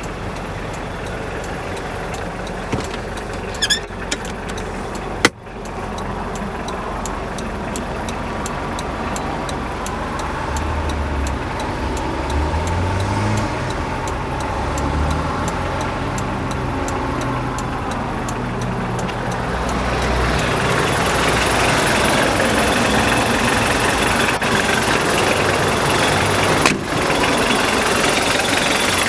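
1989 Mitsubishi Pajero turbo-diesel engine idling steadily, with a single sharp click about five seconds in. The engine gets louder about twenty seconds in, heard close to the open engine bay.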